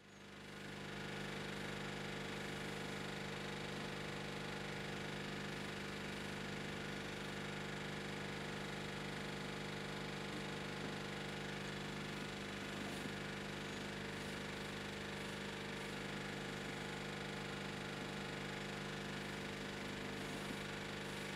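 Aquarium pump humming steadily, a constant drone of several steady tones that fades in over the first second.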